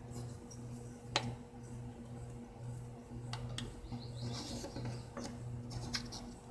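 A pencil scratches lightly on plywood as a line is marked along a square. Underneath runs a low hum that pulses about twice a second, and there is one sharp tap about a second in.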